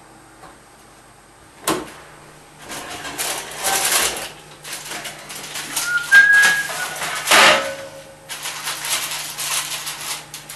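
An oven door clicks open, then a metal baking tray is slid out and handled, with baking paper rustling and scraping against it; a brief high squeak comes about six seconds in.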